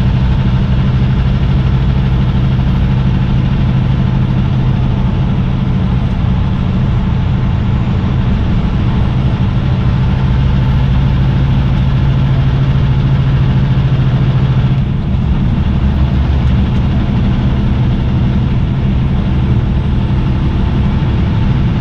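Semi truck's diesel engine running steadily with a deep hum, its tone shifting briefly about fifteen seconds in.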